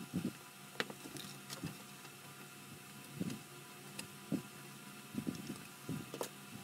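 Quiet workbench handling: soft knocks of a plastic model car body and small tools on a cutting mat, with a few sharp clicks, over a faint steady hum.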